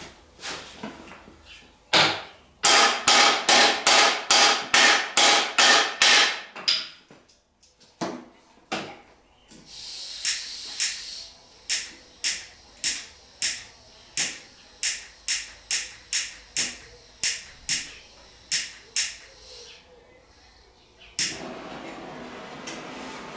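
Hammer blows on a steel go-kart frame, driving out a stuck part. A fast run of about two strikes a second is followed by a pause, then a slower run of evenly spaced strikes. Near the end a steady whirring starts.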